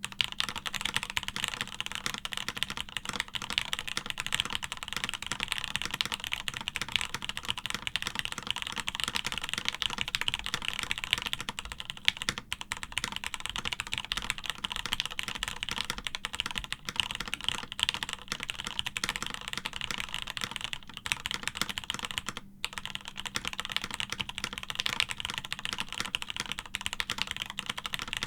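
Continuous fast typing on a plateless Keebox M0110 mechanical keyboard with stock Gateron UHMknown switches and Alephkey keycaps: a dense run of key clicks with one momentary break about two-thirds of the way through.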